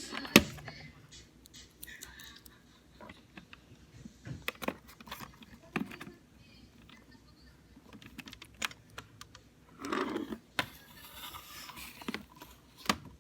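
Irregular clicks and taps from things being handled close to the microphone, with a sharp loud click just after the start and another near the end.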